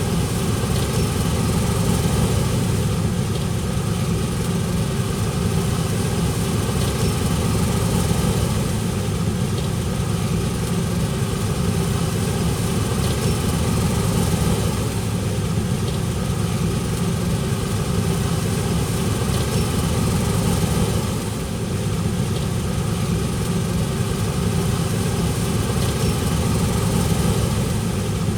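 Large diesel engine of harvest farm machinery running steadily, with a brief slight dip in level a little past the middle.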